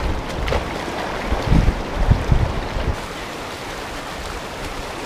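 Mountain stream rushing over rocks, a steady hiss of water, with a few louder low rumbles between about one and a half and two and a half seconds in.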